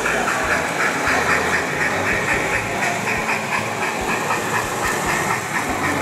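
Sound-equipped On30 model steam locomotive chuffing in an even, rapid rhythm over a steady hiss.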